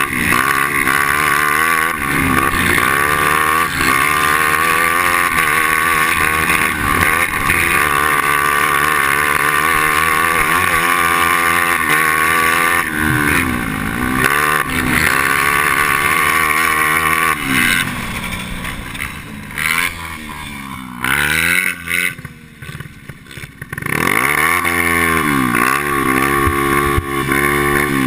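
Onboard sound of a racing kart's two-stroke engine at full race load, its note rising and falling as the throttle is opened and eased through the corners. A little past the middle it drops back to a quieter, uneven off-throttle burble for a few seconds, then revs up hard again.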